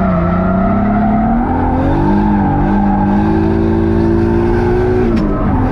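Turbocharged 1JZ inline-six in a BMW E46 drift car, running loud under load. Its pitch climbs slowly for a few seconds, then dips sharply with a short crack about five seconds in and picks up again.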